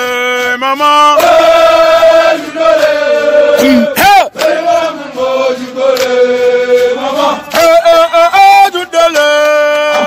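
A group of men chanting a Senegalese soldiers' marching song in unison, with long held notes.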